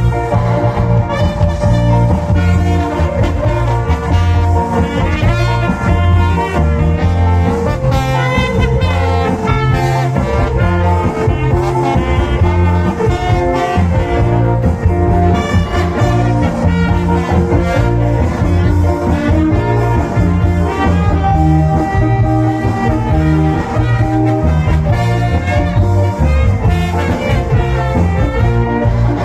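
Cha-cha dance music played loud through a sound system, with a heavy, regular bass beat and brass-like melody lines on top.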